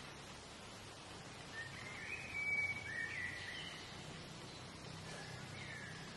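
Outdoor ambience with a songbird giving a few short whistled phrases. The loudest comes about two and a half seconds in, and a short falling whistle comes near the end, over a faint steady low hum.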